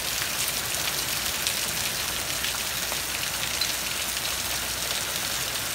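Hail about the size of Dippin' Dots falling steadily with rain: a dense, even hiss packed with many small sharp ticks as the stones strike hard surfaces.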